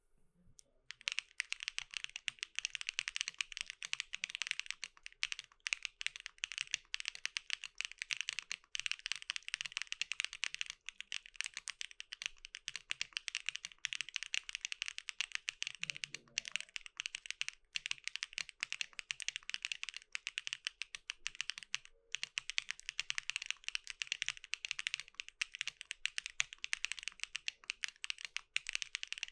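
Mechanical keyboard with stock, factory-lubed Keygeek Y3X linear switches on a polypropylene (PP) plate, typed on quickly and continuously. It starts about a second in, with a few very brief pauses.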